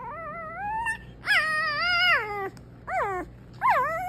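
Newborn puppies crying: four high squealing cries that rise and fall in pitch, the third one short.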